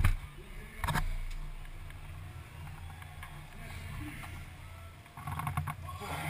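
Stock Car race car's V8 engine idling steadily, heard from inside the cockpit. There are sharp knocks from the onboard camera being handled at the start and again about a second in.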